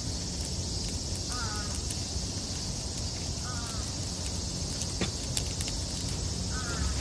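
A steady drone of insects with a bird calling in short calls about every two seconds, and a few faint crackles from the burning straw fire.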